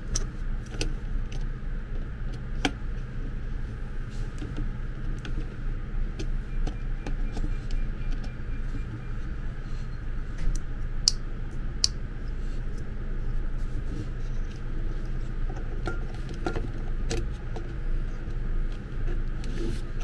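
Scattered sharp plastic clicks and taps from fitting a switch button into an electric kettle's plastic handle by hand, over a steady low hum.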